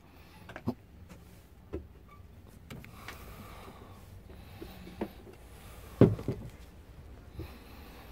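A few short, dull knocks and thumps as someone moves about on a small moored boat, the loudest about six seconds in, over a faint low rumble.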